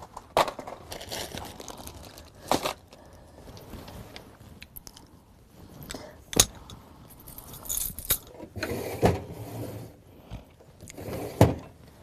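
Chunky jewellery jangling and clacking as it is handled, with a handful of sharp clacks spread out between softer rustling.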